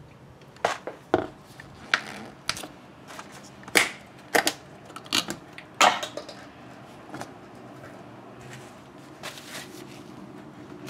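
Sharp clicks and taps of a plastic shake cup, its domed plastic lid and cardboard food packaging being handled on a kitchen counter, about ten in the first six seconds, then quieter handling.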